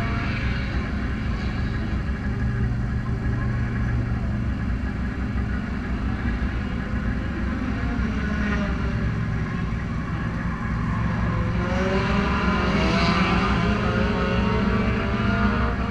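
Renegade-class race car engines idling steadily while the cars sit lined up, with engine pitch rising and falling between about eleven and fifteen seconds in as an engine is revved.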